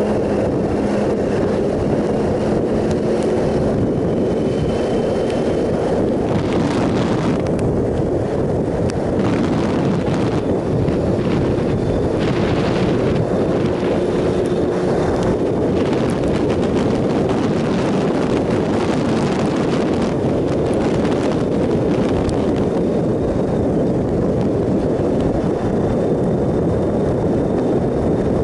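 Steady wind roar on the microphone at road speed from a Triumph Sprint ST 1050 motorcycle, with its 1050 cc three-cylinder engine running steadily at a cruise underneath.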